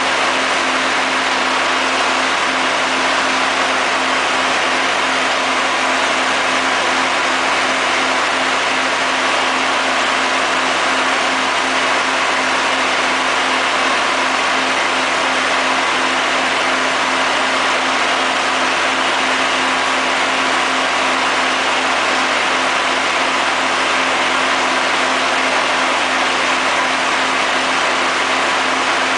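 Shotcrete being sprayed onto rock: a steady, even hiss of compressed air and concrete from the nozzle over the constant hum of an engine-driven machine running at steady speed.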